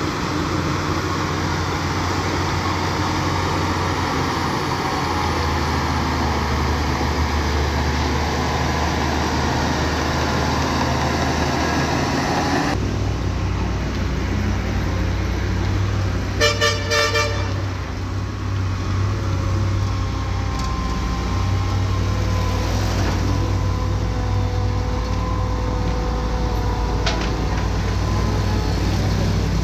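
Heavy diesel machinery of a Shantui DH bulldozer and a dump truck running steadily at work; the engine sound changes abruptly about 13 seconds in. About 16 seconds in, a vehicle horn gives a quick burst of toots lasting about a second.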